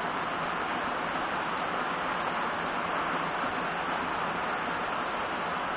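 Heavy rain falling steadily on palm foliage, grass and a wet road, an even hiss that does not change.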